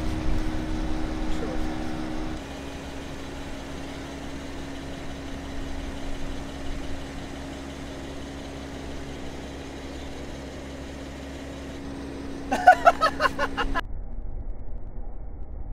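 A car rolling slowly and idling, a steady hum with a held low tone, and a short burst of rapid squeaky pulses about twelve seconds in.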